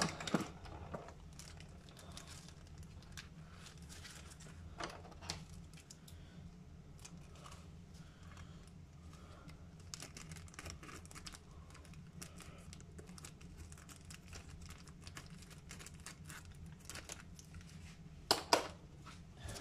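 Clear plastic packaging crinkling and rustling as it is opened and a sheet of gasket paper is slid out, with scattered small clicks and a louder crackle near the end.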